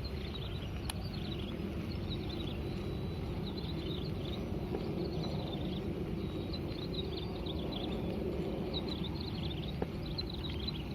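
Many short, high, falling chirps from small birds, scattered throughout, over a steady low rumbling background.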